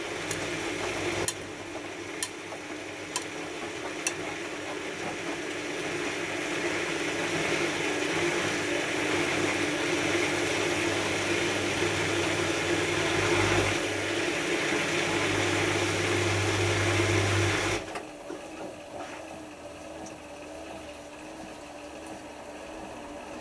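Hotpoint HF8B593 washing machine taking in water for its rinse: a steady rush of water that grows louder, then cuts off suddenly about eighteen seconds in as the inlet valve closes, leaving a steady machine hum. A few light clicks near the start.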